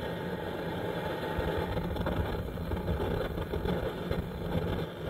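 Coleman Denali Exponent liquid-fuel stove burning just after being lit from its priming bowl, a steady rushing flame noise with a low rumble.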